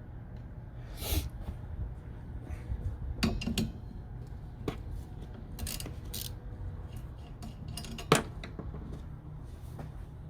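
Hand work on the wiper arms and plastic cowl: scattered clicks and metal-and-plastic clinks from tools and parts being handled, with one sharp knock about eight seconds in.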